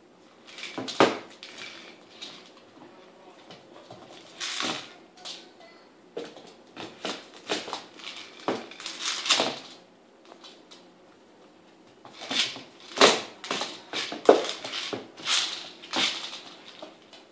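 Irish Terrier puppy knocking a Kong Wobbler treat toy about on a hard laminate floor: irregular plastic clunks and rattling of kibble inside, mixed with the puppy crunching the kibble it shakes out, with a brief lull partway through.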